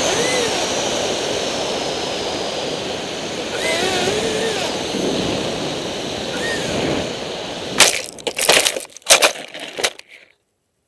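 Twin electric ducted fans of a radio-controlled A-10 Warthog model whining with a wavering pitch over rushing air during an emergency landing after loss of battery power. About eight seconds in comes a burst of hard crunching impacts as the model hits and tumbles across ploughed ground. Then the sound cuts off suddenly.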